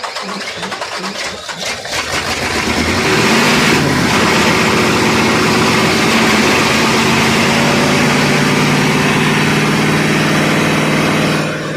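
Isuzu 8PE diesel engine being cranked, the starter turning it in even pulses about three times a second, then catching about two seconds in. It runs loud and steady at raised speed, then drops back to a lower steady run near the end.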